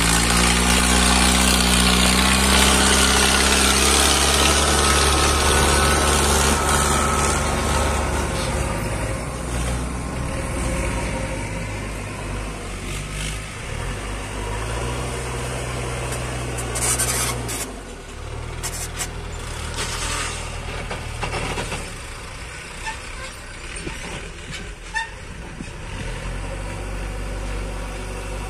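Mahindra Arjun 555 DI tractor's diesel engine running loudly as it pulls its trolley away, fading over the first several seconds. A JCB backhoe loader's diesel engine then runs steadily while it works, with a few brief sharp clanks around the middle.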